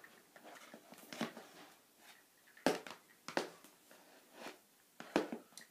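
A doll walked by hand across a wooden floor: light taps of its feet on the boards amid handling rustles, with a few sharper knocks in the second half.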